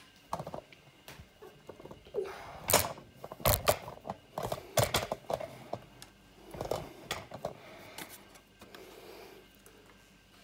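Handling noise: a series of irregular clicks, knocks and rustles from hands moving the camera and working on the motorcycle's cooling-system parts, busiest a few seconds in and fainter near the end.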